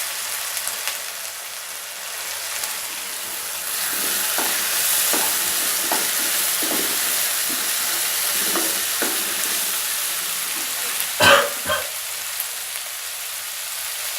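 Vegetables sizzling in hot oil and sauce in a kadhai while a spatula stirs and scrapes through them. The sizzle grows louder about four seconds in, with a run of short spatula knocks, and there is one loud thump about eleven seconds in.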